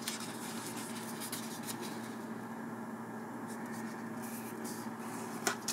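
Faint rustling and creasing of a small sheet of origami paper being folded by hand, over a steady low hum. There is a sharper rustle near the end.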